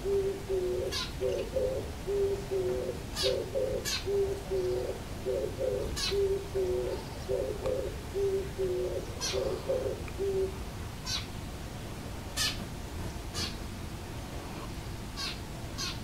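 Oriental turtle dove singing its breeding-season song: low cooing phrases repeated one after another, stopping about two-thirds of the way through. Brief, sharp high chirps are scattered throughout.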